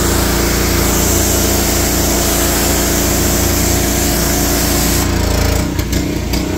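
Pressure washer running: a steady motor drone under a loud hiss of spray. About five seconds in, the highest part of the hiss drops away while the motor keeps running, and a few knocks follow.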